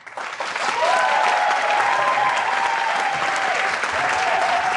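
Crowd applauding enthusiastically with cheering, swelling up over the first second into dense, steady clapping with long held cheers riding over it.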